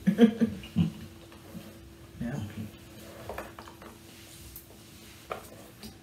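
A few light clinks and knocks of tableware at a meal, including a couple of sharp clicks in the second half, mixed with short murmured voice sounds in the first half.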